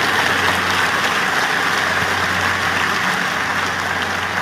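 Large audience applauding, a dense steady clapping that gradually dies down.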